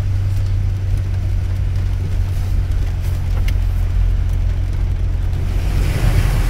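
Pickup truck driving on a wet road, heard from inside the cab: a steady low drone of engine and road noise under the hiss of wet tyres. The tyre hiss swells near the end, as if the wheels are running through standing water.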